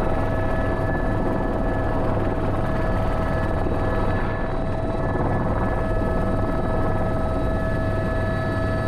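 Airbus H125 single-engine helicopter in flight: a steady rotor and turbine drone with a constant high whine over it.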